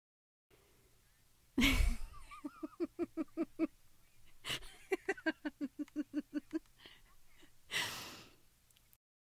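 A woman laughing in two quick 'ha-ha-ha' runs, each set off by a sharp gasping intake of breath, ending on a loud breath out.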